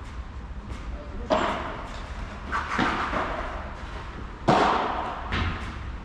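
Padel ball being hit back and forth with paddles during a rally: about five sharp hits with echo, the loudest about four and a half seconds in.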